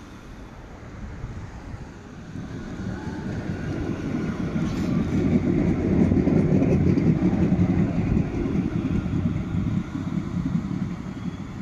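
A tram passing by: its low running rumble grows to a peak around the middle, then fades toward the end, with a faint higher whine during the approach.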